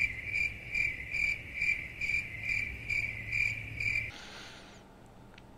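Cricket chirping: a steady, high, even chirp about twice a second, which cuts off abruptly about four seconds in and is followed by a brief faint hiss.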